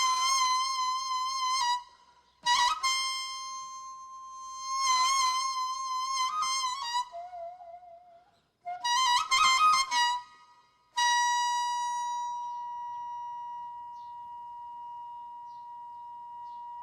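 A solo wind instrument playing a slow melody of long high notes with wavering vibrato and quick ornamental turns, broken by short pauses. The last note, which starts about two-thirds of the way in, is held for several seconds.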